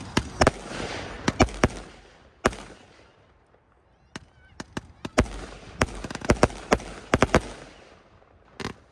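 Winda Pulse Pounder salute cake firing: a rapid, irregular string of sharp aerial bangs (reports, with no colour effects), with a lull of about a second partway through before a denser run of bangs.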